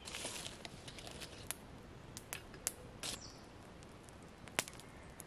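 Small wood campfire crackling: scattered, irregular sharp pops and snaps, the loudest about four and a half seconds in, over a faint steady hiss.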